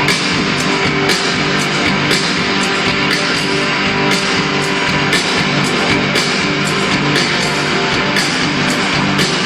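Live rock band playing loudly through a concert sound system at a soundcheck: guitar with sustained notes over a steady drum beat.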